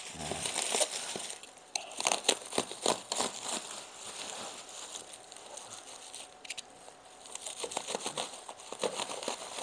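Black plastic parcel wrapping crinkling and tearing as it is pulled open by hand from around a cardboard box, in a string of irregular sharp crackles.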